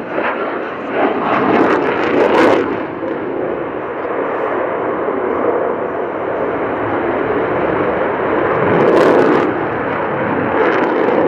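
Sukhoi Su-27P fighter's twin AL-31F turbofan jet engines during a display flight. The jet noise is dense and steady, and swells louder about two seconds in and again about nine seconds in.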